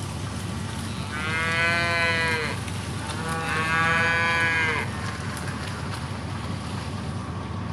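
Cattle mooing: two long calls about a second apart, each dipping in pitch at its end, over a low steady rumble.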